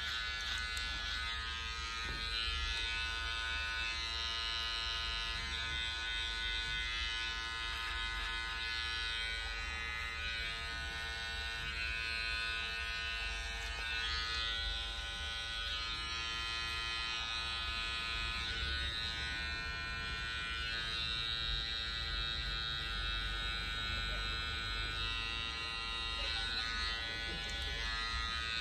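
Electric hair clipper running steadily with an even buzz while it cuts hair over a comb.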